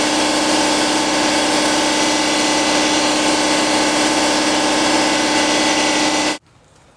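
Air compressor motor running steadily, with a strong hum and a wide hiss, for the air spray gun; it cuts off abruptly near the end.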